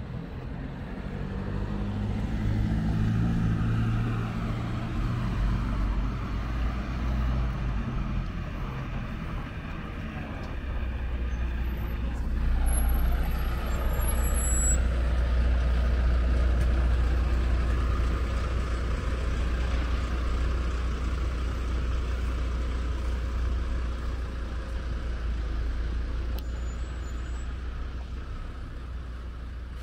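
Heavy road traffic: a large vehicle's engine running close by, a deep rumble that swells and fades twice.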